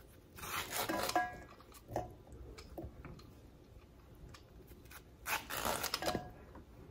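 Handheld corn stripper (OXO Good Grips Corn Prep Peeler) drawn down an ear of corn, cutting the kernels off the cob into a bowl: two strokes about a second long, the second about five seconds after the first.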